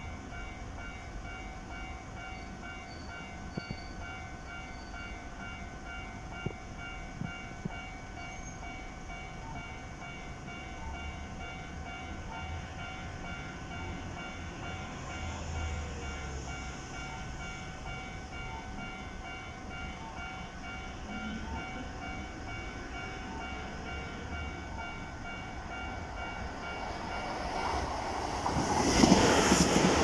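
Level-crossing warning alarm ringing steadily with a repeating tone. In the last few seconds a Keisei 3400 series electric train approaches and passes close by, its noise growing quickly loud.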